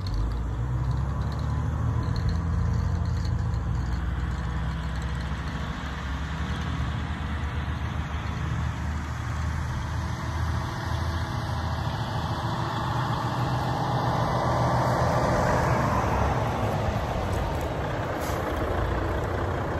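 Freightliner Cascadia semi tractor's diesel engine running steadily as the truck drives off and circles back. The sound gets louder in the second half as the truck draws near.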